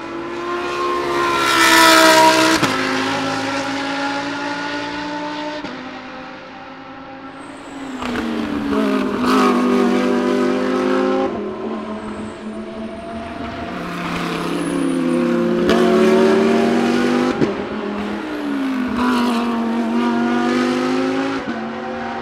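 GT3 race cars, the Lamborghini Huracán GT3's 5.2-litre V10 among them, passing one after another on track. Their engine notes fall and rise in pitch through the corner, in four loud pass-bys, the loudest about two seconds in.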